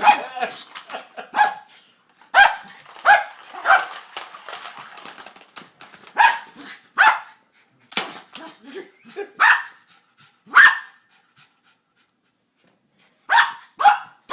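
A dog barking in short, separate barks at an uneven pace, about a dozen in all, with a pause of a couple of seconds before the last few. The barking is frustration at a ball stuck in a cat toy that he can't get out.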